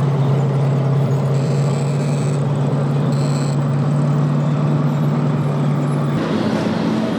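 Steady engine drone with a strong low hum, its pitch stepping up about six seconds in.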